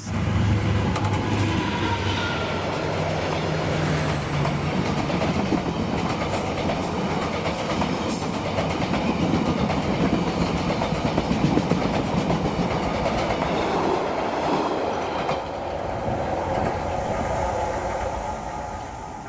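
Passenger train running past close by on the adjacent track: a steady rumble, with the wheels clicking over rail joints through the middle.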